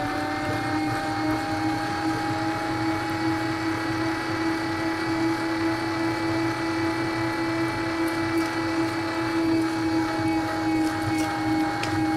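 Electric meat grinder's motor running with a steady whine while its auger grinds peach pieces; the pitch rises a little right at the start and then holds.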